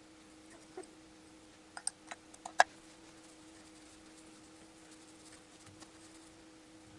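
A few light metallic clicks and taps as steel valve tappets are handled, wiped with a rag and set down on the cylinder head, the sharpest click about two and a half seconds in, then only faint rubbing and ticks.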